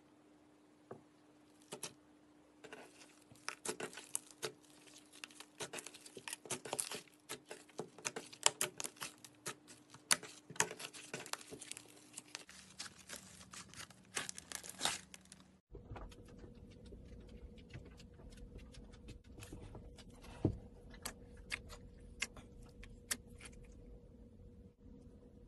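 Slime being played with by hand, giving runs of small crackling clicks and pops that come thick and fast, then thin out after an abrupt cut about halfway through.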